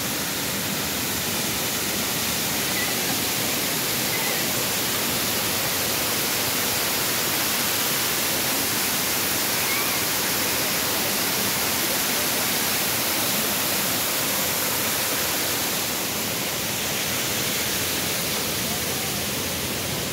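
Waterfalls pouring over rock walls: a steady, dense rush of falling water across high and low pitches, slightly quieter in the last few seconds.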